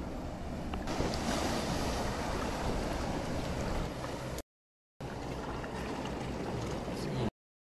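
Shallow tide-pool water sloshing and trickling around rocks as a hand moves through it, with surf behind. The sound cuts out to silence twice for about half a second.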